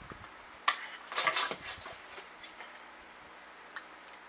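Hard plastic clicks and rattling from a makeup bronzer compact being handled and opened. There is one sharp click a little under a second in, then a quick cluster of clicks, and a few faint ticks afterward.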